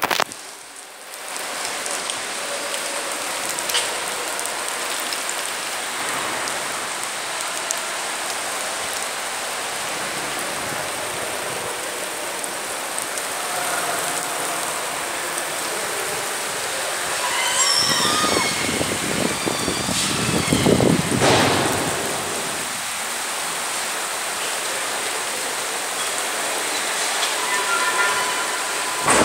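Heavy rain mixed with hail falling steadily, an even hiss. About two-thirds of the way through it swells louder and deeper for a few seconds, with brief high wavering tones over it.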